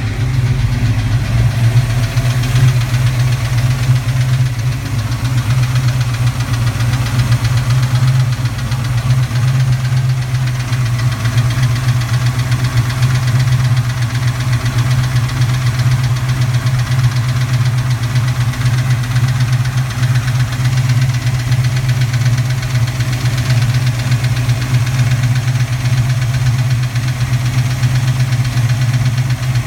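Recently rebuilt 331 V8 idling on a cold start with a fast, steady metallic clatter from the passenger side. The owner can't tell whether it is valve clatter or piston slap; the noise goes away once the engine reaches operating temperature.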